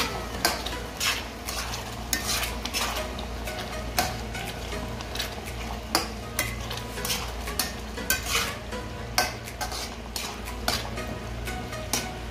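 Pasta sauce being stirred in a nonstick frying pan: the utensil knocks and scrapes against the pan in irregular clicks, about one or two a second, over the steady sizzle of the sauce cooking.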